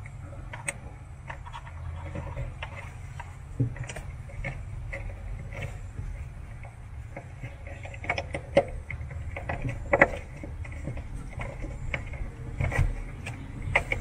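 Small clicks, taps and handling noise of hands plugging a thermistor's wire connector back into its socket and pressing the taped wires into the plastic inner wall of a wine cooler, with a couple of sharper knocks past the middle, over a low steady hum.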